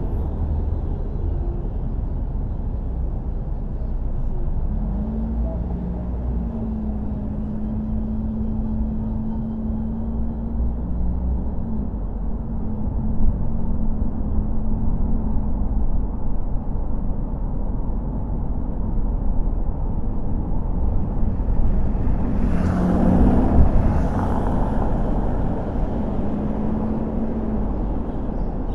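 Car driving on city streets: a steady low rumble of road and engine noise, with a steady hum for several seconds early on and a louder rush of noise lasting about two seconds near the end.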